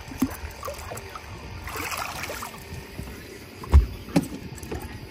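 Water splashing as a flathead catfish is hand-landed at the side of a boat, then a loud thud and a few smaller knocks on the boat about four seconds in as the fish comes aboard.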